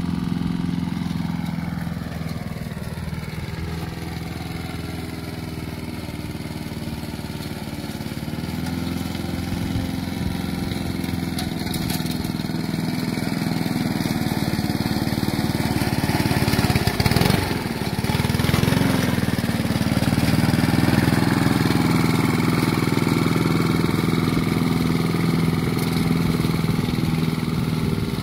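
Gas push mower's small engine running steadily under load as it is towed through tall grass, getting louder about halfway through.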